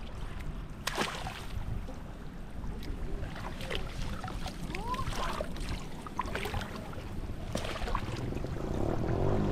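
Water splashing and sloshing in shallow water as hands work through it, over a low wind rumble on the microphone. Background music begins to fade in near the end.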